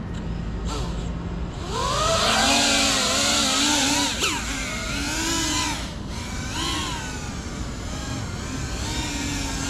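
GEPRC Cinelog 35 cinewhoop FPV drone's motors and ducted propellers, whining loudly as it lifts off about a second and a half in. The pitch then rises and falls with the throttle, and the sound eases off after about six seconds.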